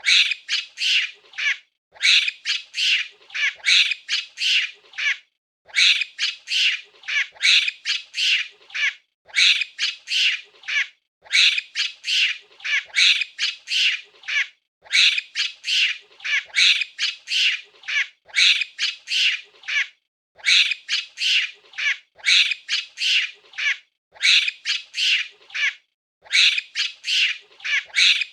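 Monkey screeching excitedly: rapid runs of high-pitched calls in bouts of a second or two, with short breaks between, repeating over and over.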